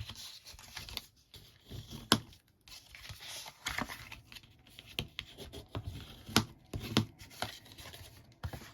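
Bone folder rubbing and scraping along the score lines of a sheet of card stock, burnishing the creases, with sharp taps and clicks of card and tool on the work surface; the sharpest tap comes about two seconds in.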